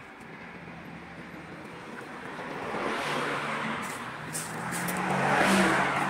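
A motor vehicle passing by: engine hum and road noise swell about three seconds in and again, louder, near the end.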